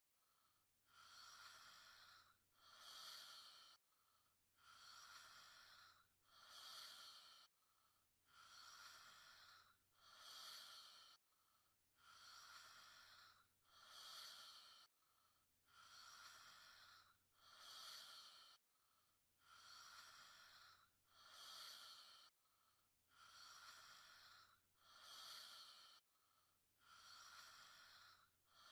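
Faint, slow breathing of a sleeping young woman: a soft breath in and a breath out, repeating evenly about every four seconds.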